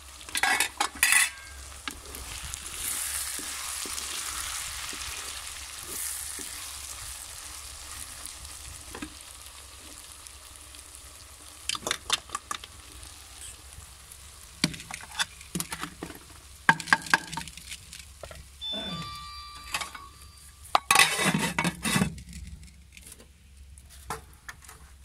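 Okra masala frying and sizzling in an aluminium pot, stirred and scraped with a wooden spatula. A steady hiss of frying comes in the first several seconds, and later there are repeated knocks and scrapes of the spatula and lid against the pot.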